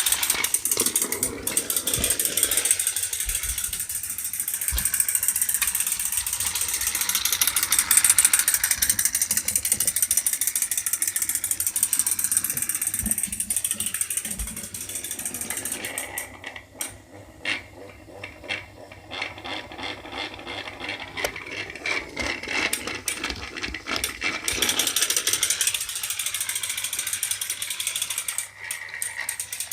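Battery-powered Plarail toy train (Theo) running along its track: a fast, steady gear whir with rapid clicking from the small motor and gearbox. It goes quieter for several seconds in the middle, then louder again.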